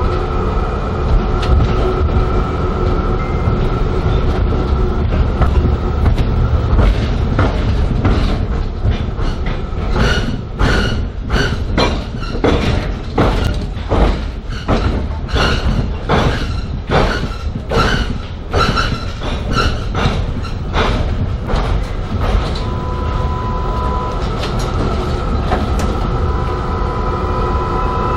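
Tram running along street track, heard from inside: a steady low rumble with a steady whine. From about ten seconds in comes a run of regular clacks, about two a second, lasting some twelve seconds.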